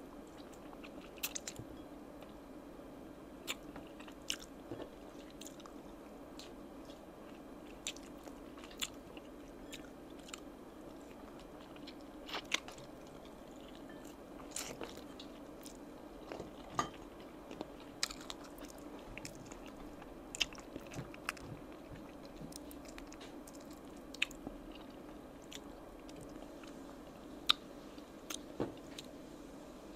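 Close-miked chewing of oven-roasted chicken wings eaten by hand, with scattered short, sharp mouth clicks and smacks over a steady low background hum.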